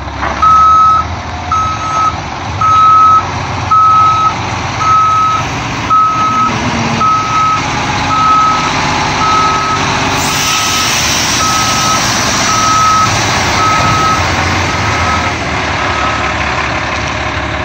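Backup alarm on a 1990 Ford L8000 straight truck beeping steadily, about two beeps a second, over the running engine; the beeping stops near the end. A steady hiss joins about ten seconds in.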